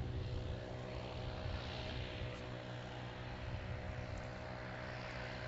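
Watchkeeper unmanned aerial vehicle's propeller engine running steadily, a constant engine note of several held tones with a hiss above it.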